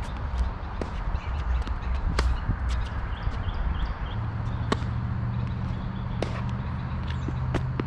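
Tennis rally on a hard court: sharp pops of rackets striking the ball and the ball bouncing, one every second or so, over a steady low rumble, with a low hum coming in about four seconds in.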